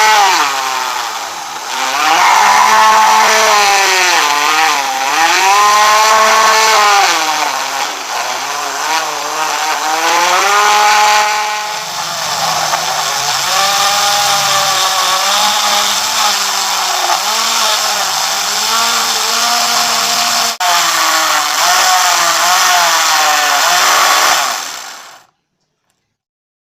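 Small electric motor-driven tool cutting wood. Its whine repeatedly dips in pitch and recovers as the cut loads it, then stops abruptly near the end.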